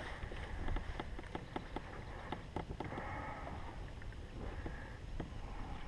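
Fishing reel being cranked to retrieve a cast swimbait: a stream of small irregular clicks with a faint whir that comes and goes, over a low wind rumble on the microphone.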